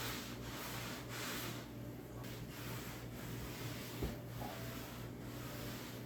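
Faint repeated rubbing strokes on a wood surface over a steady low hum, with one soft knock about four seconds in.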